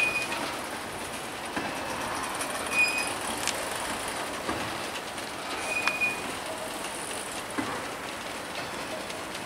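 Freight cars rolling slowly past on steel rails: a steady rumble of wheels on track, with three short high-pitched wheel squeals and a few sharp clanks.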